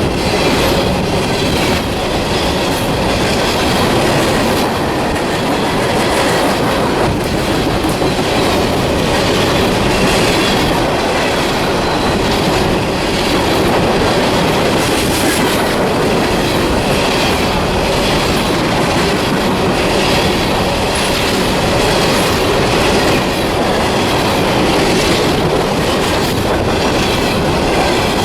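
A fast CSX coal train's cars rolling past close by: a steady, loud rush of steel wheels on rail with clicking over the rail joints.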